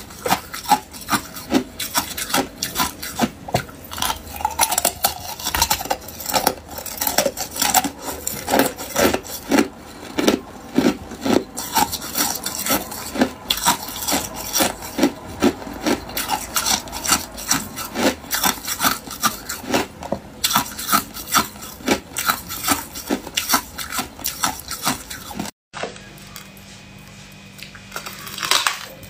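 Hard ice cubes being bitten and chewed, a dense run of loud, sharp, irregular crunches several times a second. About 25 seconds in they cut off suddenly, and a faint steady low hum follows.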